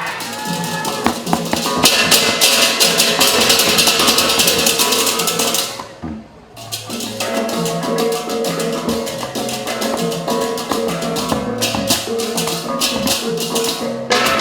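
Instrumental ensemble music: pitched instruments holding steady notes over fast, dense rattling percussion. It breaks off briefly about six seconds in, then resumes.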